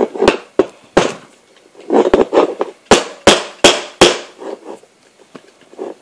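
Plastic LEGO bricks clicking and knocking against each other and the table as a brick-built padlock is handled and turned over, with its red Technic key worked in the slot. About a dozen sharp clicks come irregularly, with short scrapes of handling between them.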